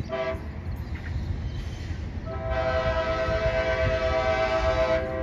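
Approaching train's multi-note air horn: a short toot at the start, then a long steady blast beginning about two seconds in, over a low rumble.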